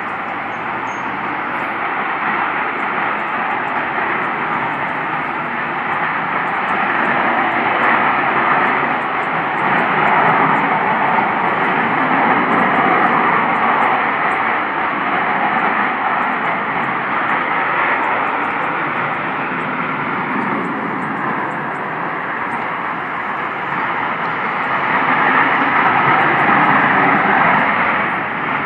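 Loud, steady rushing roar from the sky that sounds like jets flying overhead, though no planes are in view. It swells and eases in slow waves, loudest about ten seconds in and again near the end.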